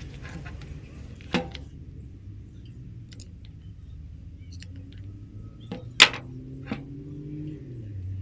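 A few sharp metallic clicks as a steel rod is fitted into the key hole of a drill's keyed chuck and used to turn it in place of a chuck key: one about a second in, then three close together near the end, the middle one loudest. A steady low hum runs underneath.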